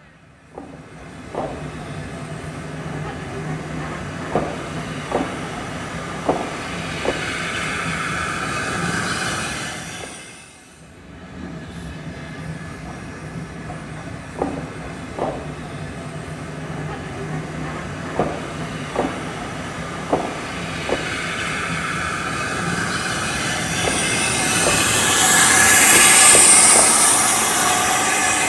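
Steam locomotive No. 2409 'King George' and its passenger coaches rolling slowly past, with the wheels clicking over rail joints about once a second over a steady low rumble. Near the end a loud hiss of steam swells as the locomotive draws level.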